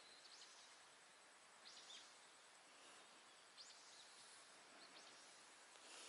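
Near silence: faint steady hiss with a few short, high bird chirps scattered through it, one every second or so.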